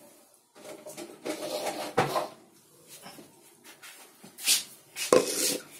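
Kitchen handling sounds as utensils are fetched and set down: a few knocks and bumps, the sharpest about two seconds in and again near the end, with rustling and a short hiss a little before the end.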